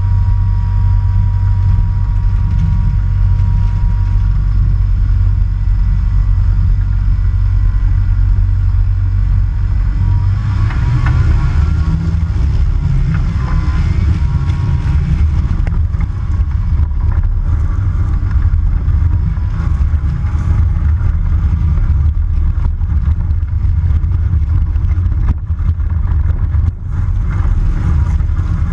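Kitfox light aircraft's engine and propeller running on the ground, a steady loud drone whose note changes about ten seconds in.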